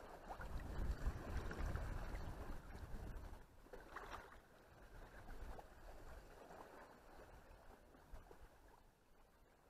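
Shallow sea water lapping and sloshing softly around wading legs, with a low wind rumble on the microphone for the first three seconds or so.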